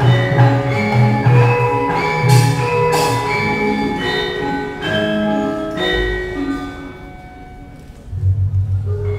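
Javanese gamelan playing a srimpi dance accompaniment: bronze metallophones and gongs strike ringing melodic notes over a low sustained hum. The playing thins and quietens about seven seconds in, then a deep, wobbling low stroke rings out near the end.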